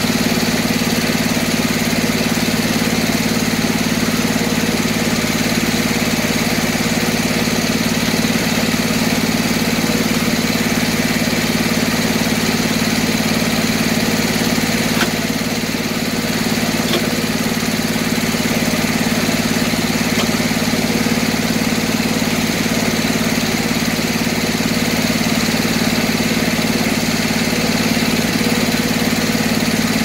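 Circular sawmill running steadily between cuts, its drive engine and spinning head saw holding one constant pitch with no log in the blade.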